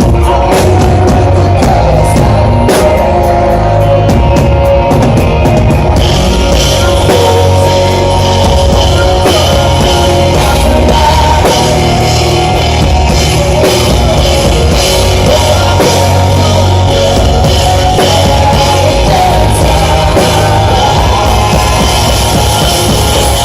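Live rock band playing an instrumental passage of the song: drum kit, electric guitar and bass, loud and dense. The cymbals come in heavier about six seconds in.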